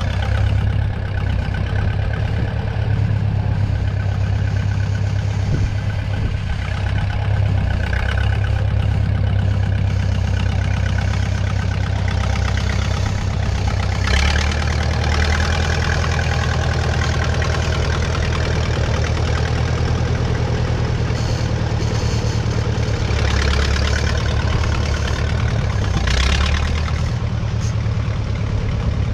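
1956 Case 411 tractor's gasoline engine running steadily while working with its loader, its speed shifting a couple of times, with a few brief rattling flares over the engine note.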